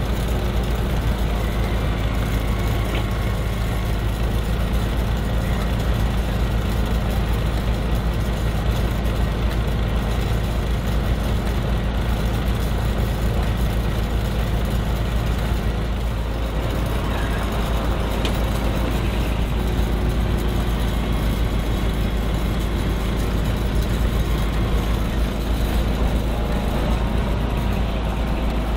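Heavy-haulage prime mover's diesel engine running steadily at low revs as the truck creeps forward towing its low-loader trailer.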